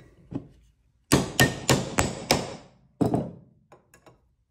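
Hammer striking a steel rivet-setting tool to drive a burr (washer) down the pin of a number 9 leather rivet: a quick run of five sharp blows about a second in, one more near three seconds, and a few light taps.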